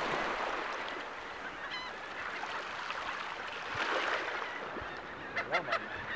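Laughing gulls calling: a few short calls about two seconds in and a quick burst of calls near the end, over a steady rushing background noise.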